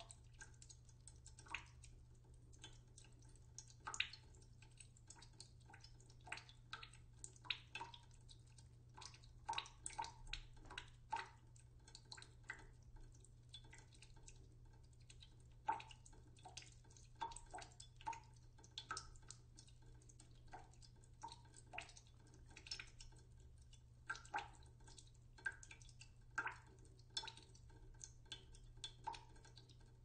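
Water dripping slowly into a cooking pot in a sink: faint, irregular drops, a few a second, each a short pitched plink.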